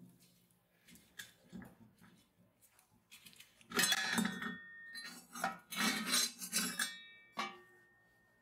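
Rusty metal dasher paddle and shaft of an antique butter churn being worked loose and lifted out of its steel can, clinking, knocking and scraping against the rim with a brief metallic ring. A few light clinks come first, then louder clattering about four seconds in and again around six seconds, with a last knock near the end.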